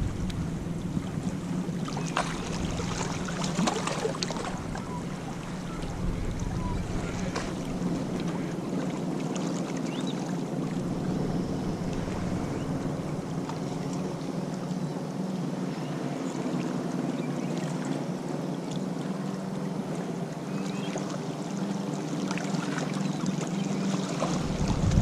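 Surf washing on a beach, with wind on the microphone and a few faint ticks.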